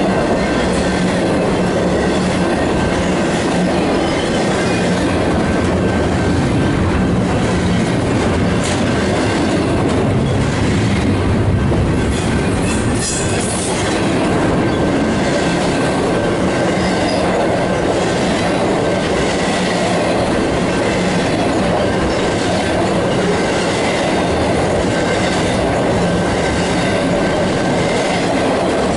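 Freight cars of a Union Pacific intermodal train rolling steadily past close by: a continuous rumble of steel wheels on rail with a rhythmic clickety-clack over the rail joints and a faint, steady high wheel squeal.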